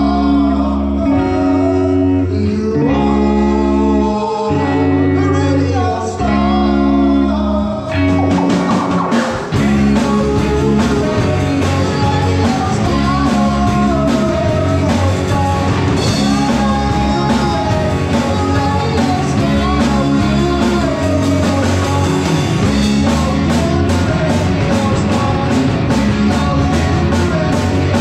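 Live rock band of electric guitars, bass guitar and drum kit playing with singing. The first several seconds are held chords and bass notes under the voice, then the drums come in about eight seconds in and the full band plays a driving rock beat.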